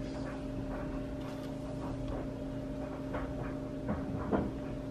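Quiet room tone with a steady low hum, and a few faint taps and clicks of small items being handled on a tabletop, most of them in the second half.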